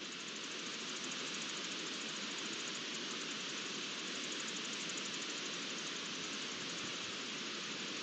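Steady outdoor ambience picked up by a wildlife webcam's microphone: an even hiss with no distinct events.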